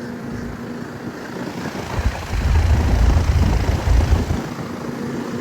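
Trane XR14 central air-conditioner condensing unit running just after start-up: a steady compressor hum under the rush of the condenser fan. A low rumble swells for about two seconds midway.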